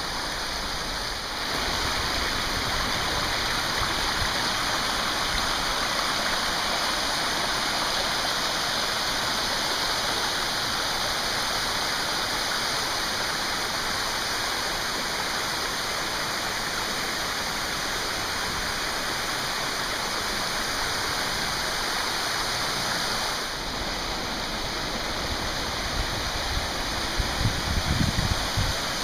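Warren Falls, a tall waterfall on Warren Creek running high after weeks of heavy rain, pouring steadily with an even rushing hiss. Near the end, a few low irregular rumbling bursts come through under the water noise.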